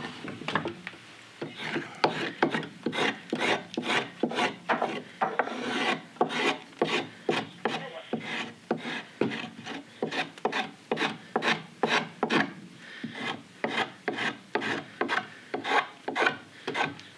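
Hand carving tool shaving green sycamore wood in quick, repeated scraping strokes, about two a second.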